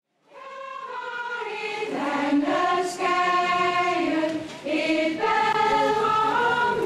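A choir singing slow, held chords, fading in from silence within the first half second.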